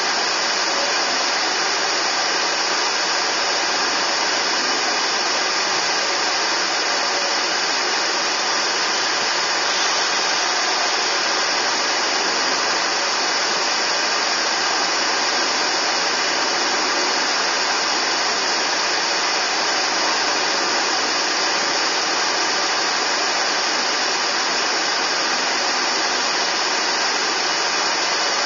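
Steady, even hiss inside a moving car, strongest in the upper range and unchanging in level, with no clear engine note and no other events.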